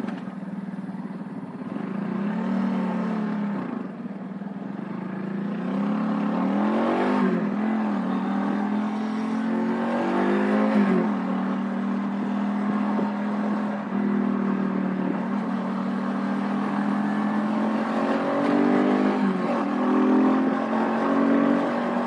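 Vitacci XMT 250 motorcycle engine pulling away from a stop and accelerating, its pitch climbing and then dropping back several times as the rider shifts up through the gears.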